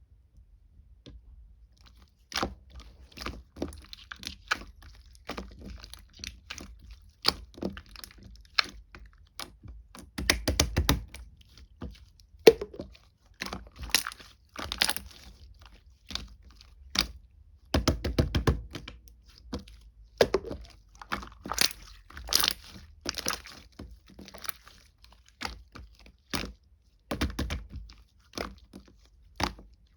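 Slime being pressed, poked and stretched by hand, starting about two seconds in: a dense, irregular run of sharp wet clicks and pops, with a few heavier squishing pushes.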